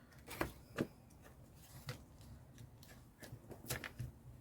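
Light scattered clicks and rustles of paper and craft pieces being handled on a desk, with a small run of clicks near the end.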